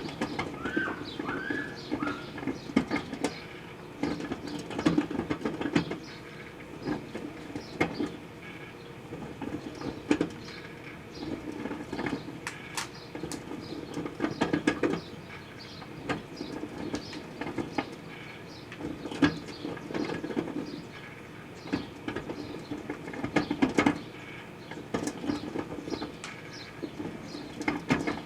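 Proctor-Silex microwave oven running with a steady hum while sugarcane heats inside, with irregular clicks and crackles throughout.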